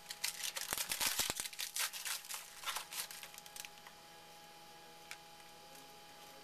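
The wrapper of a 2011 Topps Finest football card pack being torn open and crinkled in the hands. It is a dense crackly rustling for about three and a half seconds, then it stops, leaving a faint tick or two.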